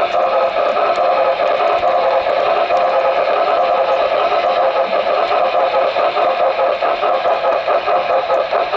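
HO scale model steam locomotive running, a steady mechanical whirr from its motor and drive, heard up close from a camera riding on the train.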